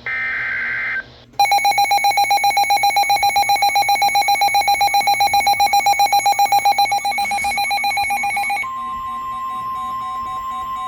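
The tail of the NOAA Weather Radio SAME header, a brief screechy two-pitch data burst, then a harsh electronic alarm beeping about nine times a second for about seven seconds, giving way near the end to the steady one-pitch weather radio warning alarm tone with faint intermittent beeps beneath it. These tones announce a new severe weather warning.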